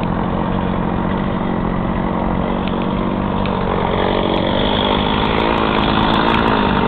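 Chainsaw engine running steadily under load as it cuts through wood, its note lifting a little about halfway through.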